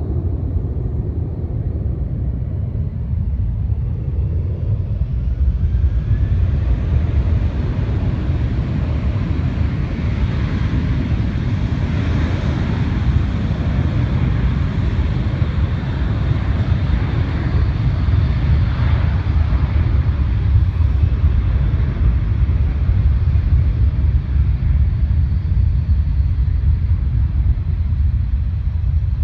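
Jet airliner engine noise from the runways, swelling over several seconds and then slowly fading, over a steady low rumble.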